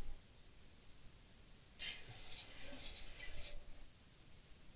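Aerosol freeze spray hissing in one uneven burst of under two seconds, about two seconds in, as it frosts a powered iPhone logic board so that a shorted part that warms up will show.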